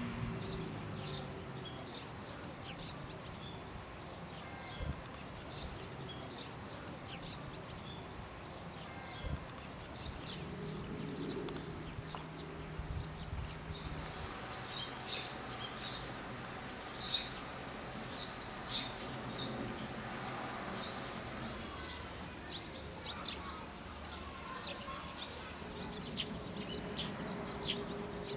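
Small birds chirping again and again in short, bright calls over a steady background hum, the chirping busiest in the middle stretch.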